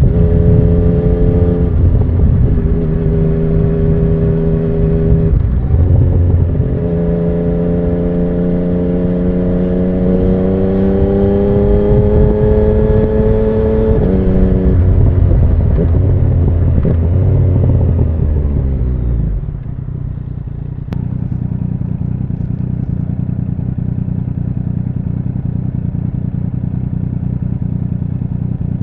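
2017 Yamaha MT-09's inline-three engine through an Akrapovic Racing Line carbon full exhaust, riding slowly on a city street. The engine note drops in steps in the first few seconds, climbs gently for several seconds, then falls away as the bike slows, and about twenty seconds in it settles to a steady idle.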